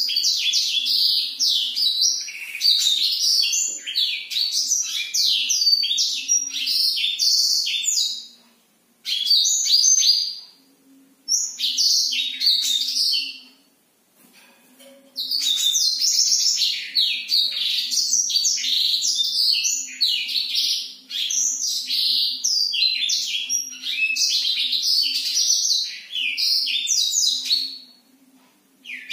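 Black-throated canary (blackthroat) in full song: long, fast rolling phrases of high twittering notes. A long run is followed by two short bursts and a brief pause, then another long unbroken run.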